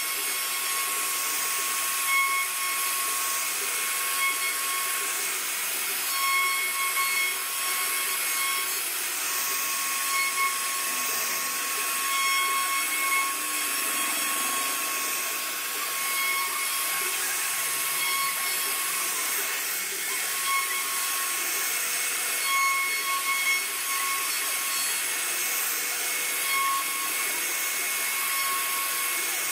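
CNC router spindle carving a relief pattern into a wooden panel: a steady high-pitched whine with hissing cutting noise, the whine growing stronger and fading again every few seconds as the bit moves through the wood.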